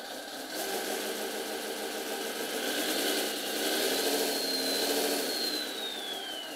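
Simulated Scania V8 truck engine from the model's Servonaut sound module, idling, then swelling in revs about halfway through and settling back. A high whistle slides down in pitch near the end.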